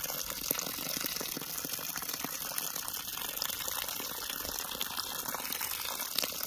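Garden hose stream pouring steadily into a plastic tub of soil, splashing.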